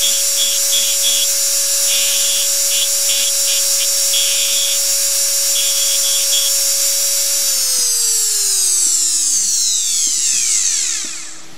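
High-speed rotary carving handpiece whining steadily at a high pitch, with short scratchy bursts as the bit cuts into the nickel's surface. About seven seconds in, the motor is switched off and the whine falls in pitch as it spins down over a few seconds.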